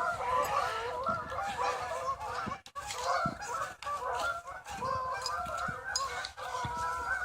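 A flock of Canada geese honking, many calls overlapping without a break, as the birds are flushed by a chasing dog.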